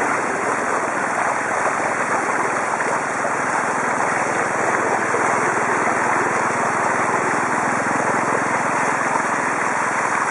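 Steady wind noise buffeting the microphone of a bicycle-mounted compact camera while riding, a loud, unbroken rush.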